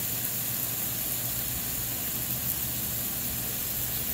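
Steady hiss of water spraying from a newly installed Orbit pop-up sprinkler head, with a low steady hum underneath.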